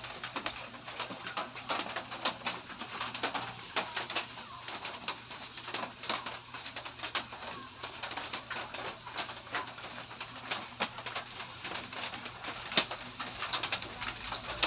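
Close-up mukbang eating sounds: wet chewing, lip smacking and slurping of stir-fried noodles eaten by hand, heard as a dense run of quick, irregular mouth clicks.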